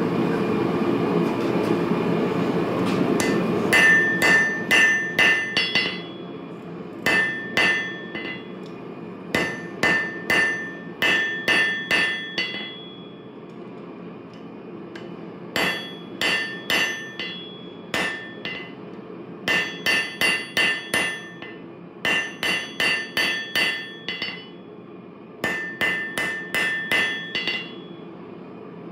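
Hand hammer striking a red-hot railroad spike on an anvil. The blows come in bursts of about five to eight, roughly three or four a second, each with a bright metallic ring, with pauses of a second or two between bursts. A steady rushing noise runs underneath and is loudest in the first few seconds, before the hammering starts.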